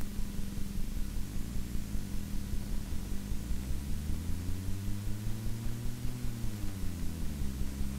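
Engine of a vehicle driving alongside the racing camels, running low, its pitch rising as it speeds up a few seconds in and falling again near the end, over a steady hiss with a rapid regular pulsing.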